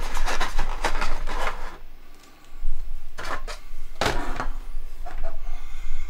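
Hands handling an unboxed USB-C to Ethernet adapter and its coiled cable in a plastic packaging tray: rubbing, scraping and small clicks and knocks as the adapter is lifted out and set down, with a short lull about two seconds in.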